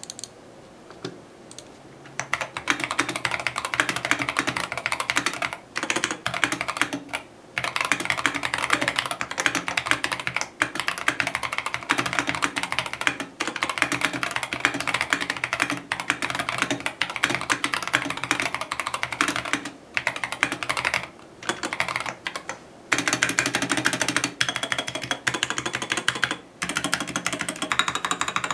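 Typing on a Feker IK75 V3 mechanical keyboard with Akko Jelly Blue tactile switches and thick PBT keycaps: fast runs of keystrokes that start about two seconds in, broken by a few short pauses.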